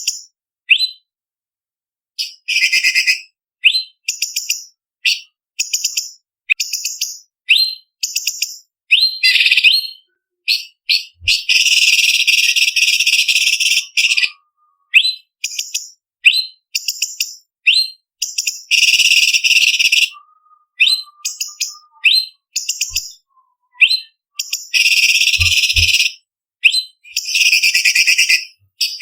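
Orange-bellied leafbird (cucak cungkok) singing: a string of short, sharp, high-pitched whistled notes broken by several longer rapid chattering bursts of one to three seconds each.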